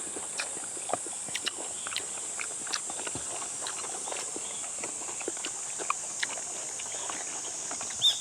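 Steady high-pitched chorus of summer insects such as crickets, with scattered small clicks and taps from people eating; the loudest tap comes near the end.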